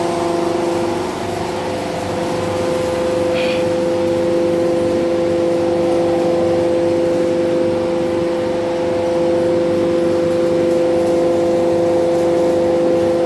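Machinery running steadily at constant speed: an even hum with two steady pitched tones. A short high hiss comes about three and a half seconds in.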